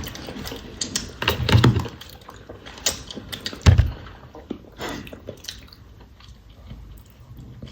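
Eating and handling noises at a table: scattered crunchy chewing clicks and small taps, with a couple of soft thumps about a second and a half in and again near the middle.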